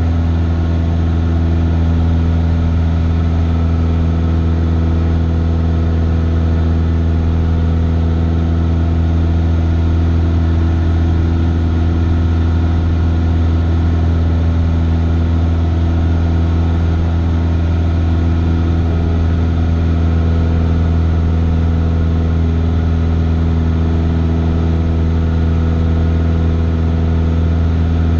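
Cessna 172's piston engine and propeller, heard inside the cabin in flight, giving a steady low drone that holds the same pitch throughout.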